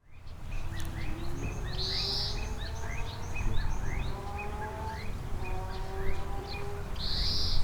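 Birds calling in short rising chirps about twice a second over a steady low rumble, with two brief high hissing bursts about five seconds apart.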